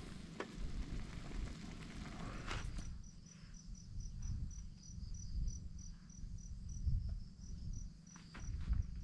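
A cricket chirping: a high, evenly pulsed note about three times a second, starting about three seconds in, over low rumbling noise. Before the chirping begins there is a rush of wind-like noise.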